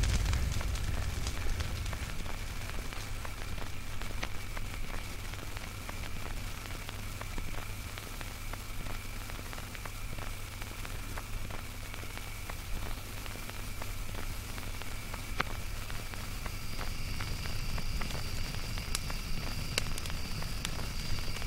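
Generated ambient drone soundscape: a steady low rumble under faint held high tones, scattered with many small clicks and crackles. A higher tone joins about three-quarters of the way through.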